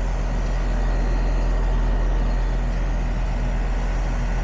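A steady low machine hum with a constant drone that does not change.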